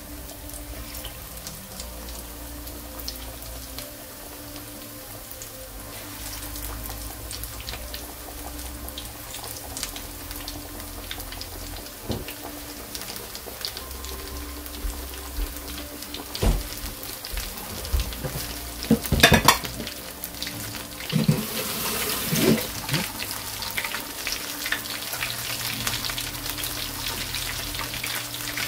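Gram-flour-battered fish pakoras deep-frying in hot oil in a wok: a steady sizzle with crackling. A few louder clicks and knocks come about two-thirds of the way through.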